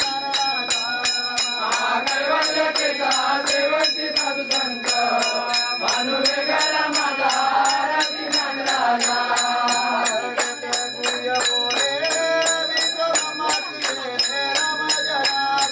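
A group singing a devotional bhajan together with steady rhythmic hand clapping, about four beats a second, over a constant high metallic ringing.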